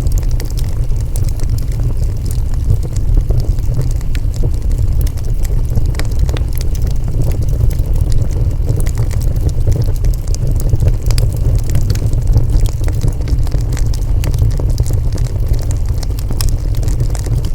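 Wood fire burning, with a steady low rumble and frequent sharp crackles and pops scattered throughout.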